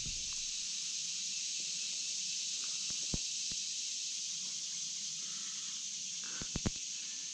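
Steady chorus of crickets and other insects, an even high hiss that does not change. A few light clicks come about three seconds in and a quick cluster of them near the end.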